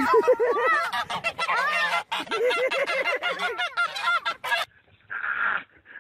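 Goose honking over and over in quick arching calls, then cut off abruptly about four and a half seconds in.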